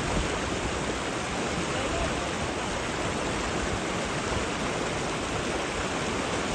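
Fast river rapids rushing steadily, with an even, unbroken water noise.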